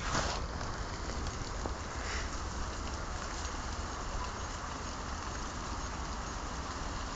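Steady outdoor hiss over a low rumble, the kind wind and weather make on a small camera's microphone, with a brief rustle right at the start as the camera swings over the grass.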